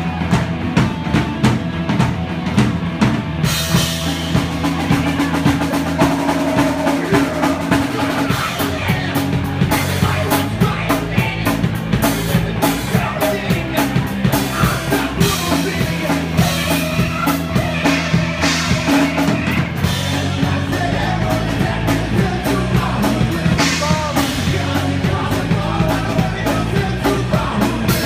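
Live rock band playing a song: drum kit keeping a steady beat under electric guitar, with a singer singing into a microphone. The drums turn brighter about three and a half seconds in.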